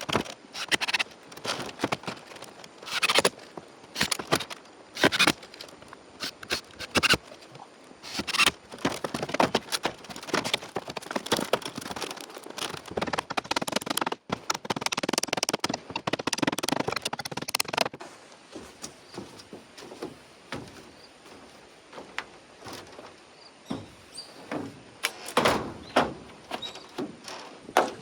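Irregular knocks, taps and clatter of hand work on building materials, denser in the first two-thirds and thinning out later.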